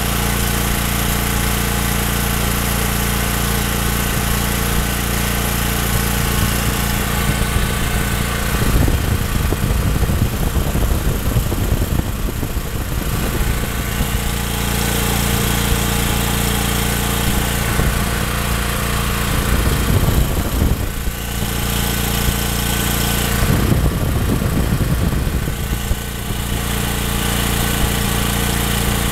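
Briggs & Stratton portable generator's single-cylinder overhead-valve engine running steadily with no load at its governed speed, about 3700 rpm, which is within spec. Several stretches of rough noise sit on top, the first about nine seconds in.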